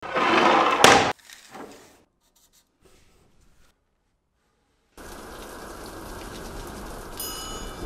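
A loud noisy burst ending in a sharp crack about a second in, then near silence, then steady rain starting suddenly about five seconds in. A brief faint ringing tone sounds over the rain near the end.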